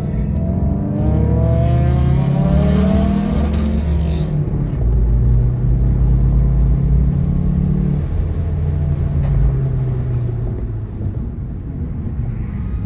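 Car engine accelerating, its pitch rising over the first four seconds, then holding at a steady cruising drone that eases lower after about eight seconds, over constant road and tyre rumble, heard from inside the car.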